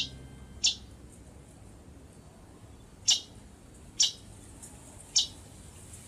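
Hepatic tanager giving five short, sharp, high chip calls, spaced unevenly: two close together at the start, then three more a second or so apart.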